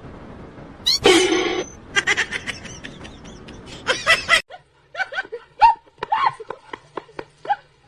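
People laughing in short pulsed bursts, with a loud sudden noise about a second in and a cut about four and a half seconds in to a quieter run of quick, short laughs.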